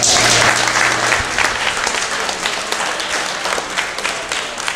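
Audience applauding, loudest at the start and slowly dying down.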